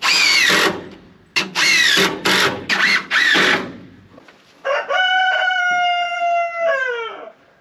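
Cordless drill driving screws into a wooden board in about six short bursts, its whine dropping in pitch within each burst. About five seconds in, a rooster crows once, a long call that holds its pitch and then falls away at the end.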